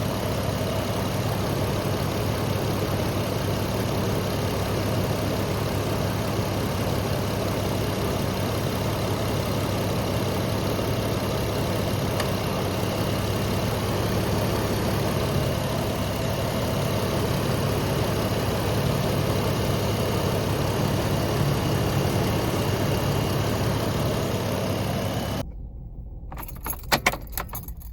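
Jeep engine idling steadily with the air conditioning running, under the hood. About 25 seconds in the running stops abruptly, followed by a few short clicks and jingles.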